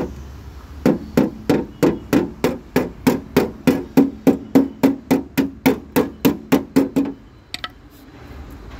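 Hammer striking a metal patch on a car's rear body panel above the wheel arch, about three even blows a second, each with a short ring of the sheet metal. The hammering stops about seven seconds in, followed by a couple of light taps.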